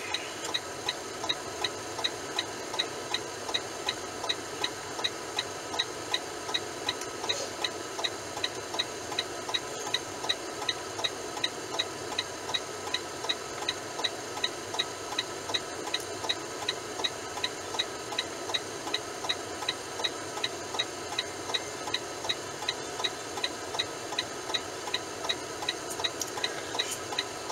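A steady ticking, about two clicks a second, typical of a semi truck's turn-signal or hazard flasher relay, over the steady hum of the cab.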